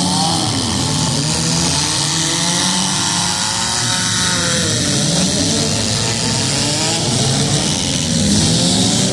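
Demolition derby car engines revving hard, several at once. Their pitches climb and fall over each other as the cars push and shove in the mud.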